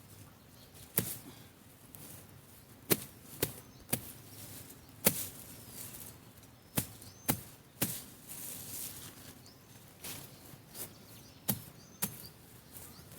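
A panga (machete) slashing through weed stems in irregular strokes, about a dozen sharp hits over the span, some in quick pairs or triplets.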